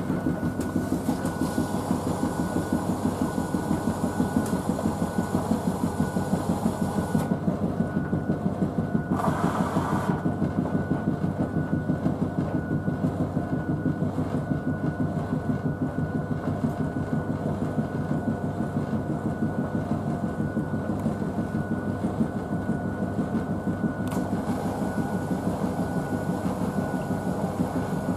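Blomberg WNF9448 front-loading washing machine at the start of a Fast Full Load 40 wash, its drum turning a load of wet dog blankets with a steady rhythmic churning and a faint steady whine, and a hiss over the first seven seconds and again near the end.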